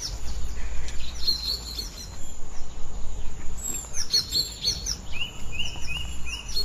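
Wild birds chirping in several bursts of short, quick calls, then a run of rapid repeated notes, about six a second, near the end. A steady low rumble runs underneath.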